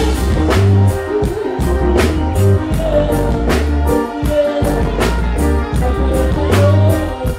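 Live reggae band music: a heavy bass line under a steady drum beat of about two hits a second, with keyboard and guitar parts.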